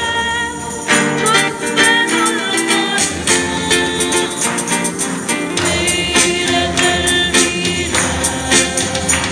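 A small group of amateur singers performing an Arabic Christmas hymn live, with instrumental accompaniment and a steady beat of percussion hits.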